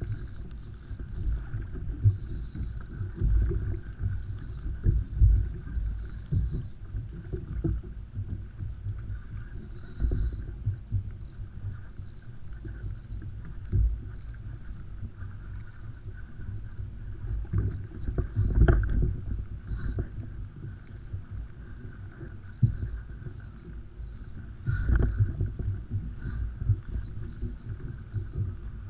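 Water sloshing and slapping against a kayak's hull, with irregular low thumps and a few sharper knocks as the kayak rocks on the ocean.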